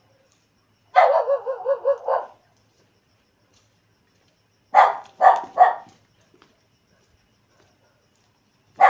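A dog barking: a quick string of yaps about a second in, then three barks in a row near the middle, and one more bark at the end.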